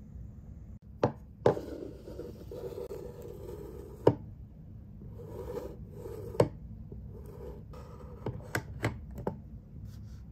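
Sharp plastic clicks and knocks with rubbing handling noise between them as a white USB power adapter is fitted and plugged into a wall outlet panel. The loudest clicks come about a second and a half in, about four seconds in and about six seconds in, followed by a quick run of smaller clicks near the end.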